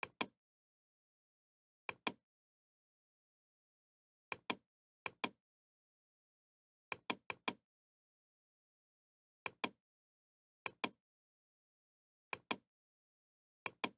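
Computer mouse button clicking: short sharp clicks, mostly in pairs of a press and release, every second or two, with a quicker run of clicks about seven seconds in and dead silence between.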